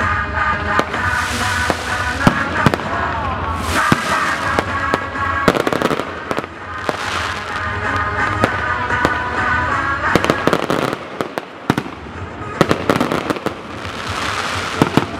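Fireworks display going off: a rapid series of sharp bangs and crackling bursts, with music playing underneath. There is a brief lull a little before the end.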